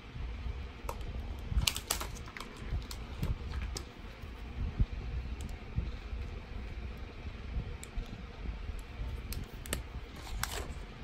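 Small plastic clicks and taps from highlighter pens and their packaging being handled close to the microphone, bunched about two seconds in and again near the end, over a low handling rumble.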